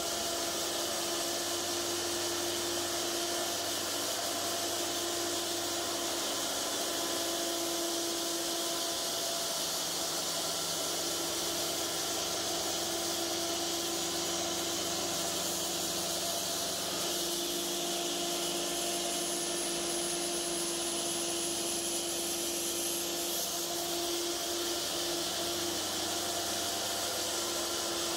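Cook's AC-36 portable bandsaw mill running steadily, its engine and band blade sawing along a large squared cant.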